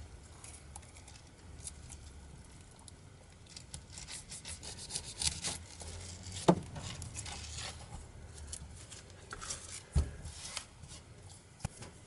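Knife cutting through a pineapple's tough skin and crown in irregular rasping, scraping strokes, with two sharper knocks partway through.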